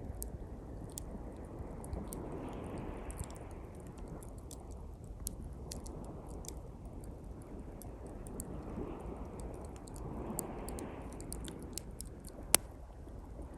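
Small campfire of thin pine twigs crackling, with scattered quick snaps and one sharp loud pop near the end. Behind it, waves wash onto the shore, swelling twice.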